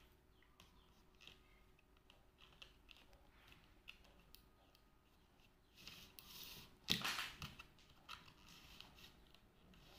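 Clear plastic packaging of a tray of small cakes being handled: faint taps and rustles, then a louder crinkle ending in a sharp snap about seven seconds in.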